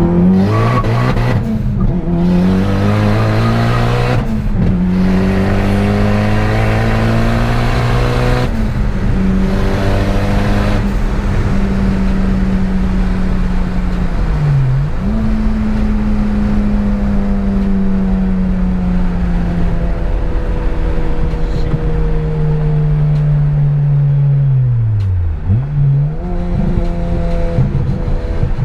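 Turbocharged Acura ILX four-cylinder engine heard from inside the cabin, pulling up through the gears with the engine note breaking at each shift. It then settles into a steady drone that slowly drops in pitch, with two sharp dips and recoveries in engine speed, one near the middle and one near the end.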